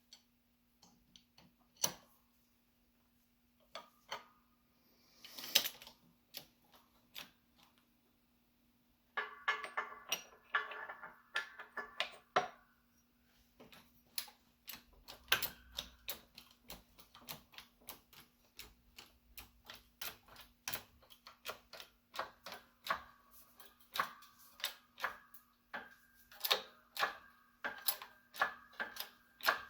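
Metal tools clicking and tapping on a steel control arm while bushings are installed. The clicks are sparse at first, then from about nine seconds in come as a dense, uneven run of several sharp clicks a second with some metallic ringing, over a steady low hum.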